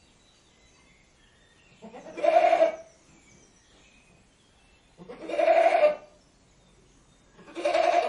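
Goat bleating: three separate calls, each about a second long, roughly three seconds apart.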